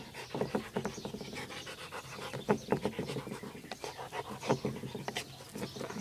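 Black Labrador panting hard, with a few sharp clicks from the rock held in its mouth.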